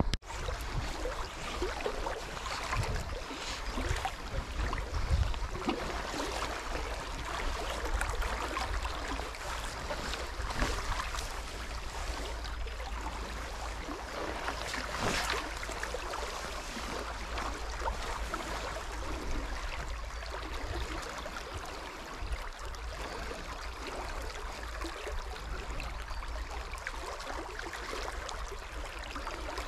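Steady rushing of river current over a rippled stretch of water, with a constant low rumble underneath.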